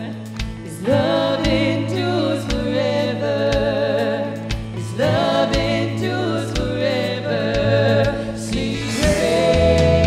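Contemporary worship band playing live: women's voices sing long phrases with vibrato, entering about a second in, again around five seconds and again near the end, over a steady beat of kick drum with electric guitar and keyboard.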